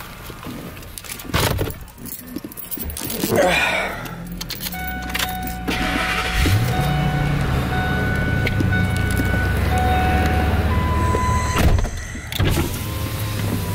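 A car engine comes in about four seconds in, revs up about two seconds later and then runs steadily, after some clattering handling noises at the start.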